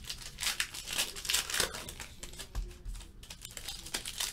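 Wrapper of a Panini Classics football card pack being torn open and peeled back by hand, crinkling in quick, irregular crackles.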